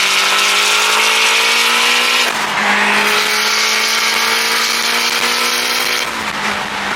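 Turbocharged K24-swapped Honda S2000 accelerating hard, its engine note climbing steadily over a heavy rushing noise; the pitch dips slightly about two seconds in, then climbs again.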